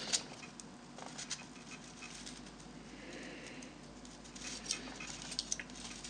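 Light clicks and taps of hands handling an opened computer mouse's plastic shell and circuit board. There is a sharp click just after the start and a run of small clicks about four and a half to five and a half seconds in.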